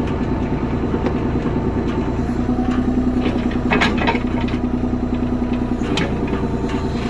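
Kubota U35-4 mini excavator's three-cylinder diesel engine running steadily, heard from the operator's seat while the hydraulics work the arm and bucket. Two brief knocks come through, about four and six seconds in.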